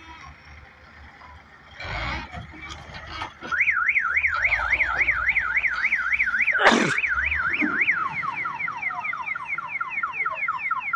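Electronic multi-tone alarm siren: a fast warble, about three swings a second, that changes partway through to quick falling chirps, about four a second. Under it is the low rumble of heavy machinery, with a thud about two seconds in and a sharp bang near the middle.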